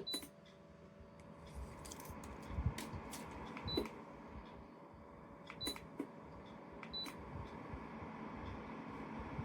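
Short high-pitched beeps, each with a click, four or five times at uneven intervals, over low handling and rustling noise.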